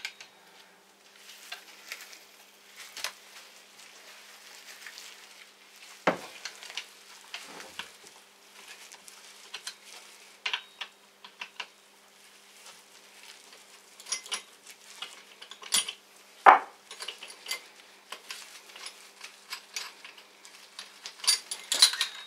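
Metal tools and fork parts being handled: scattered light clinks and scrapes, with a couple of louder knocks and a flurry of clinks near the end, as the seal-fitting clamp is taken off the fork leg.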